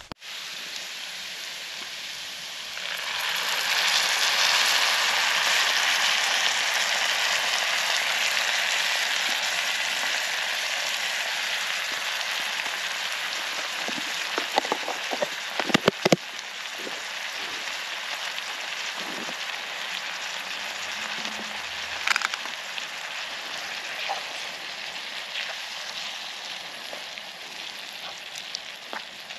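Chopped vegetables frying in a pan: a steady sizzling hiss that swells about three seconds in and then slowly eases off, with a few light knocks around the middle.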